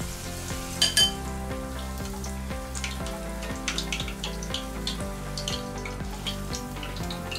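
Shrimp tempura deep-frying in hot oil, with frequent small crackles as drizzled batter bubbles around it, under steady background music. One sharp clink about a second in.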